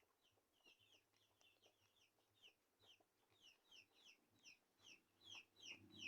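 A chicken calling in a rapid run of short, high, falling peeps, about three a second, faint at first and growing louder near the end.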